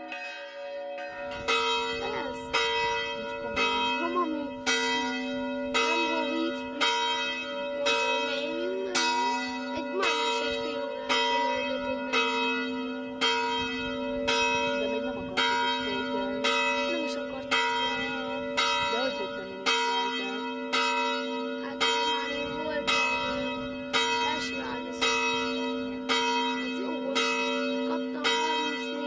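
Church bells ringing with evenly paced strokes, about one a second, each ringing on into a long steady hum that carries between strokes. The strokes begin about a second in.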